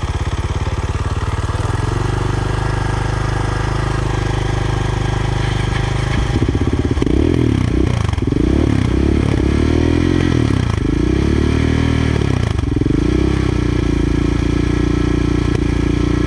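Suzuki DR650's single-cylinder engine running after being drowned in water. It runs steadily at first, then the throttle is blipped several times in the middle, rising and falling, before it settles back to a steady run.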